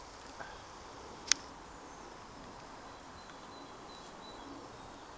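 Quiet outdoor ambience with a steady hiss and faint high bird calls, broken by one sharp click about a second in.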